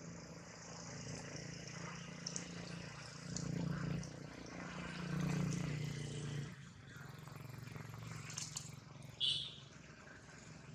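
A steady low hum and faint murmur in the background, and about nine seconds in a baby macaque gives one short, high squeal.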